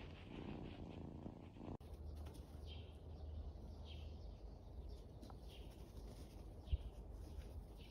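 Domestic cat purring, cut off abruptly about two seconds in. Then a steady low hum with faint high chirps repeating roughly once a second, and a single low bump late on.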